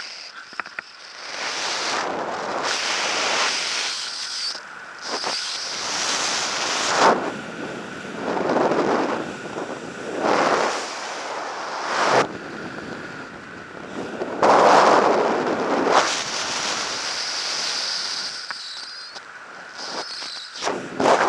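Wind rushing over a skydiver's camera microphone under an open parachute, swelling and fading in gusts, with a few short buffeting thumps; the loudest surge comes about fifteen seconds in.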